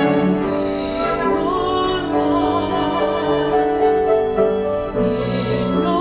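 Classical art song in live performance: a mezzo-soprano singing with a chamber ensemble of bowed strings, flute, clarinet and piano, mostly held notes, the voice with vibrato.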